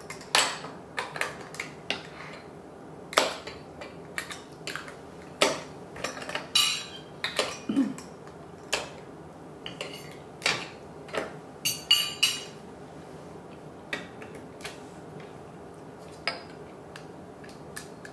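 Plastic Duplo bricks clicking and knocking against each other and on a wooden tabletop as a toddler handles a Duplo truck, in irregular clacks throughout.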